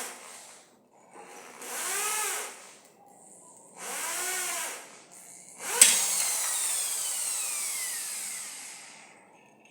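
Electric drill winding wire, run in three short spurts whose motor pitch rises and falls as the trigger is squeezed gently and released. About six seconds in a sharp click is followed by a longer run whose pitch slides steadily down as the drill spins down.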